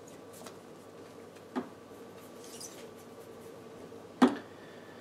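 Trading cards handled on a tabletop playmat: a soft tap about one and a half seconds in and a sharper, louder tap a little after four seconds, with faint card sliding between, over a steady low hum.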